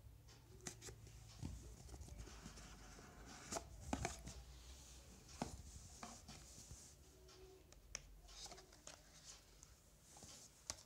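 Faint handling of a cardboard smartphone box: a seal sticker slit with a pointed tool, then the lid slid off, with scattered light taps and scrapes over a low steady hum.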